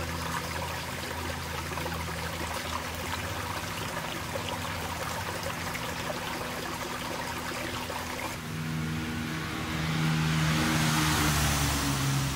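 Shallow stream trickling over rocks, with a steady hum of road traffic behind it. Near the end the traffic grows louder as a vehicle passes, its tyre hiss swelling.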